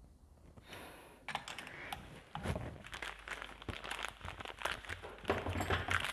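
Hands working on a motorcycle engine: rustling and crinkling with a rapid string of small clicks and clatters of parts being handled, starting about a second in and busiest near the end.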